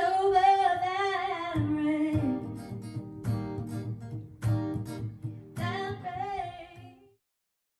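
A woman singing held, wavering notes into a microphone over an acoustic guitar accompaniment. The song fades out about seven seconds in.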